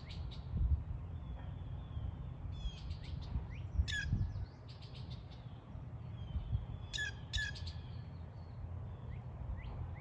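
Wild songbirds chirping: a scatter of short high chirps and several sharp down-slurred calls, loudest about four seconds in and twice around seven seconds in, over a low steady rumble.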